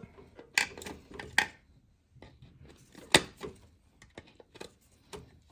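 Pliers squeezing and sliding a spring-type hose clamp down a coolant hose: a scatter of small metallic clicks and scrapes, the sharpest about three seconds in.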